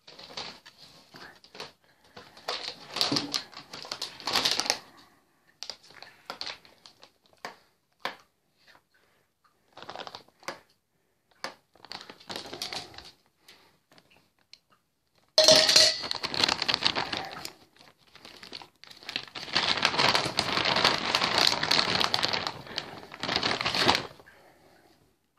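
Plastic treat bag crinkling and rustling in bouts with short silent gaps. It starts suddenly and loudly about 15 seconds in and runs densest and loudest from about three quarters of the way through until just before the end.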